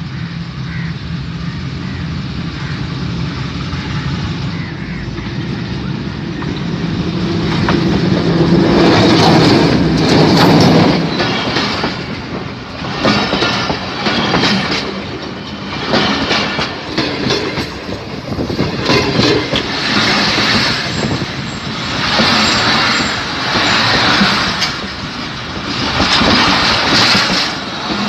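A train running directly over a phone lying at the track. A steady engine hum grows as the locomotive nears and is loudest about eight to eleven seconds in as it passes overhead. Then the wagons' wheels clatter past in surges about every two seconds as each set of wheels goes over.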